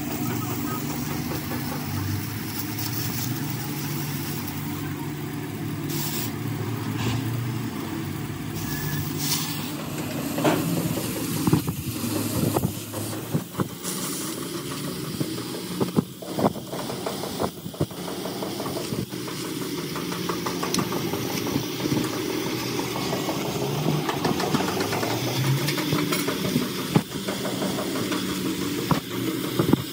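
Oxy-fuel cutting torch cutting steel plate: a steady hissing roar of the flame and oxygen jet with the crackle of sparks and slag, over a steady low hum. A few sharp knocks come in the middle stretch.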